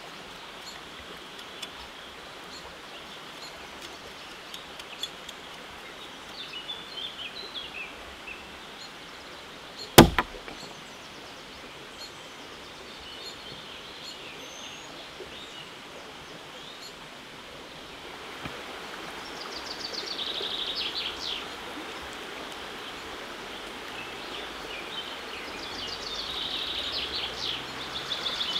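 Outdoor ambience: songbirds chirping over a steady rushing background that grows louder about two-thirds of the way through. A single sharp knock sounds about ten seconds in.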